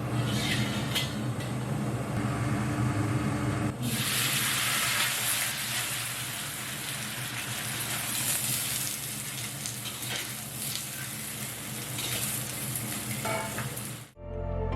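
Food stir-frying in a hot wok, a steady sizzle that turns brighter and hissier about four seconds in.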